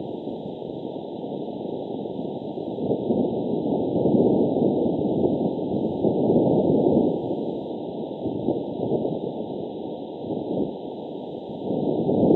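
Steady rushing, crackling noise of a sound-design soundtrack, with no tune or beat, swelling louder about four and seven seconds in and again near the end.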